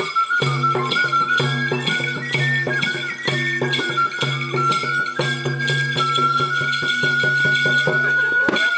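Live traditional folk music: a high, sustained melody line over a low, rhythmically pulsing accompaniment. It stops near the end.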